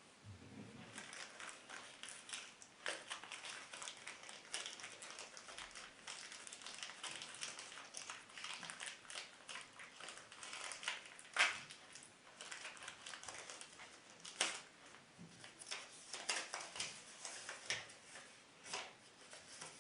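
Packaging being opened and handled: rustling and crinkling, with scattered sharp clicks and taps, the loudest snap about eleven seconds in.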